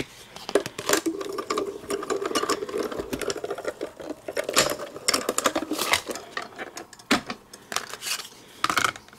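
Manual die-cutting and embossing machine being cranked, a sandwich of plastic cutting plates, steel die and cardstock rolling through with a steady grinding run and many small clicks. Near the end the plastic plates clack as they are handled and pulled apart.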